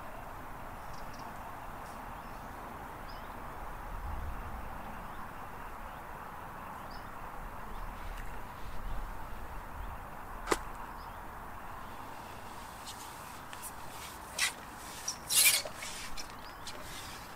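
Steady outdoor background hiss, then one sharp click a little past halfway and a quick run of swishes and knocks near the end as the long fishing pole is handled and moved.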